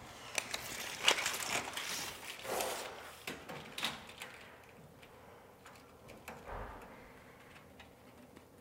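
Steel tape measure being pulled out and handled against a cabinet panel: the blade sliding and rattling, with scattered clicks and knocks, busiest in the first four seconds and then fading to small taps.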